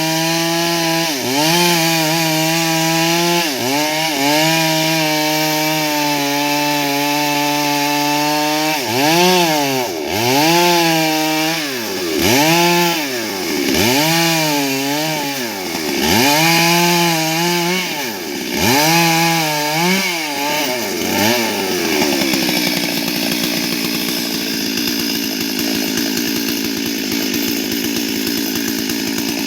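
Stihl MS 382 two-stroke chainsaw running hard through wood, its revs held high at first, then dropping and climbing back again and again. From about two-thirds of the way in, the sound turns rougher and steadier.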